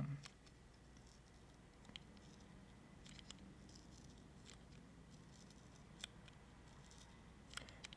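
Near silence with a few faint, scattered ticks as a 3.5" display's flexible ribbon cable is peeled slowly, bit by bit, off its adhesive.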